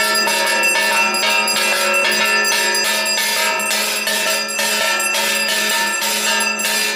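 Bells rung rapidly and without a break for the arati worship, struck about four times a second so that the ringing overlaps into one continuous clangour. A steady low hum runs underneath.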